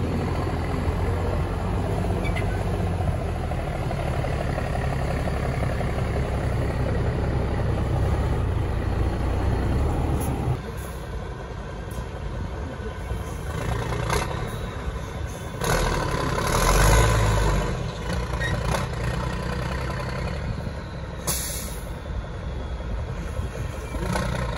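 Diesel engine of an MAN TGS 8x8 trial truck working hard off-road, running loud and heavy, then easing off about ten seconds in, with a strong surge of revs a little past the middle. A few short hisses of air are heard, the clearest near the end.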